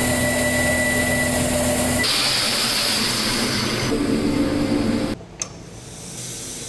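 Walter Helitronic Vision 400L CNC tool grinder grinding a compression router bit under a flood of coolant: a steady hiss of coolant spray over the machine's running hum, with faint steady tones. The sound changes abruptly twice and drops to a softer hiss about five seconds in.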